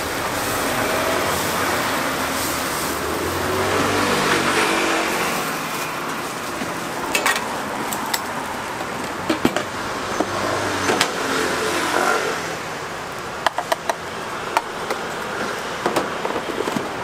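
A motor vehicle passes on the street, its engine hum swelling and fading in the first few seconds, over the hiss of batter frying on an oiled flat griddle. From about seven seconds in, sharp metal clicks recur as a steel scraper knocks against the griddle.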